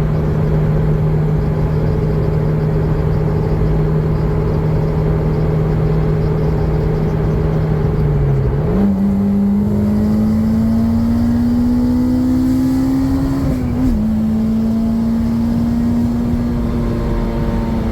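Honda S2000's 2.2-litre four-cylinder engine, breathing through its stock airbox, running at steady high revs while driving. About eight seconds in its pitch drops briefly, then jumps higher and climbs slowly under acceleration, dipping once more near fourteen seconds before holding steady.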